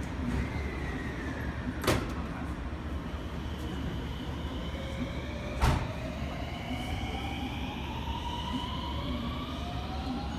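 223 series electric train pulling out of the platform. Its traction motors give a whine that climbs steadily in pitch as it gathers speed, starting about halfway through. Before the whine there are two sharp clunks, one about two seconds in and a louder one just before the whine begins.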